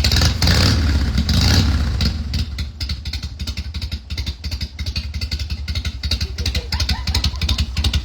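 Harley-Davidson FXR V-twin engine revved briefly over the first two seconds, then settling to a steady idle with an even beat. It is running on a freshly rebuilt carburetor after about five years of not running.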